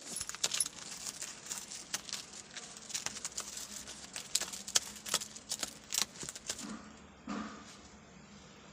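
A kitten's claws kneading and scratching at a flaking, peeling board: a quick, irregular run of dry crackles and crinkling scratches that stops about six and a half seconds in.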